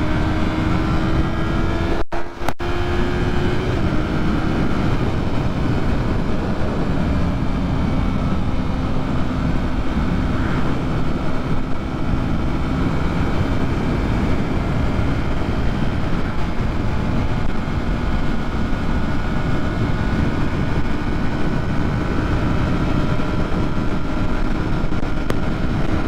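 Yamaha MT-03 parallel-twin engine running at speed under heavy wind rush on the rider's microphone. The engine note climbs, drops at a gear change about four seconds in, then holds steady before rising again near the end.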